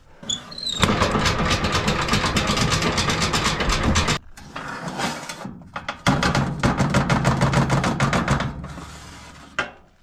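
Rapid metallic rattling and scraping at a coal-burning stove while its ash is cleared out and the ash drawer is pulled, in two long runs with a quieter pause between.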